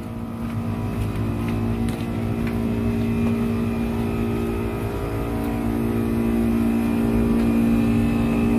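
Steady mechanical hum of air-conditioner outdoor units, a fixed-pitched drone over a low rumble, growing gradually louder.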